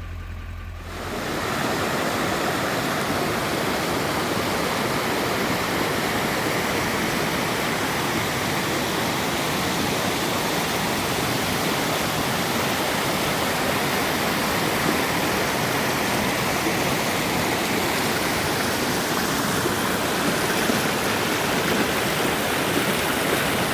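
Steady rush of flowing creek water, coming up about a second in.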